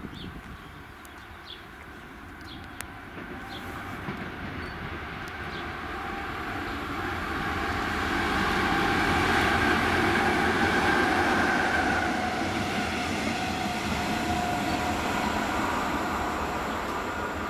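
Diesel locomotive hauling a train of wagons through the station: its engine and rolling wheels grow louder as it approaches, are loudest as it passes about two-thirds of the way in, and the wagons keep rolling past afterwards.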